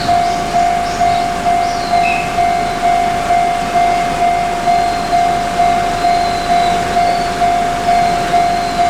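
Japanese level-crossing warning bell ringing its 'kan-kan' alarm: one steady tone struck evenly about twice a second, each stroke fading before the next. Faint high squeals come and go above it.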